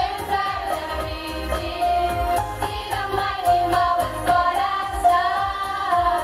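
A large group of school students singing a song together with instrumental accompaniment and a steady beat.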